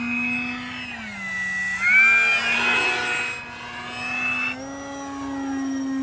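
Electric motor and propeller of a radio-controlled PA-18 Super Cub model plane in flight, a steady whine whose pitch drops about a second in and climbs back with the throttle about two seconds in, loudest there, then rises a little again near the end.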